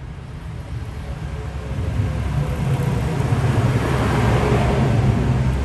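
Train approaching along the platform, its low rumble and wheel-on-rail noise growing steadily louder and fullest about four seconds in.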